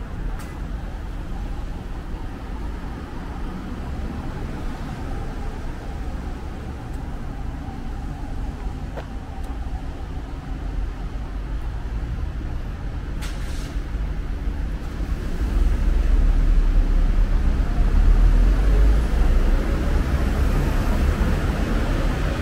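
Street traffic: motor vehicles running by with a steady low rumble that swells as a vehicle passes close in the latter part. A short hiss sounds about two-thirds of the way through.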